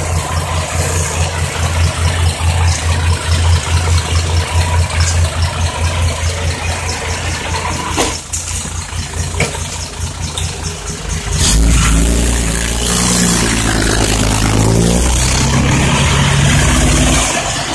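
Hino six-wheel dump truck diesel engines: first one idling with a steady low throb, then about two-thirds of the way in a louder engine picks up, its pitch rising and falling as it revs.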